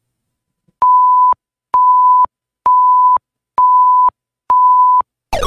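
Countdown timer sound effect: five electronic beeps at one steady pitch, each about half a second long and one per second, marking off a five-second answer time. Near the end a sound effect sweeps down in pitch, signalling that the time is up.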